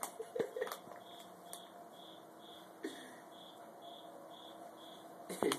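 Scattered crinkles and clicks of a small plastic bag of catnip as a cat bites and licks at it, with a louder burst of crinkling near the end. Behind it, a faint high chirp repeats about twice a second.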